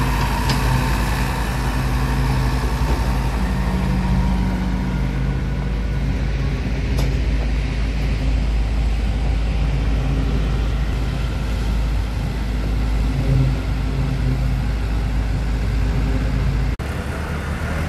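Diesel farm tractor engines running steadily under load as they tow heavily laden sugarcane trolleys, a continuous low engine drone. The sound changes abruptly near the end.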